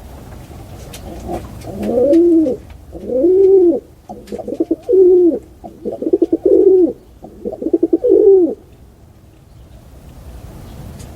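Pigeon cooing: a run of about six coos, each rising and then falling in pitch, the later ones broken by a quick flutter.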